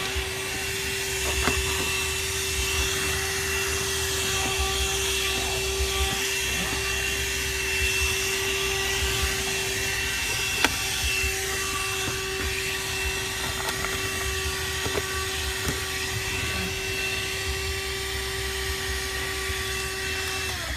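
Vehemo 12 V, 100 W handheld car vacuum cleaner running steadily with a constant motor whine, vacuuming up hair through its hose and flat brush nozzle, with a few light clicks along the way. The motor is switched off right at the end.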